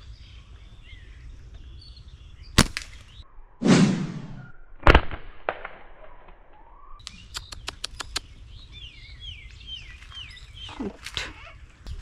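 Wild birds chirping, with a run of short descending chirps about two-thirds of the way through. Several sharp clicks break in during the first two-thirds, including a quick run of about six, and there is a short rushing burst just before the middle.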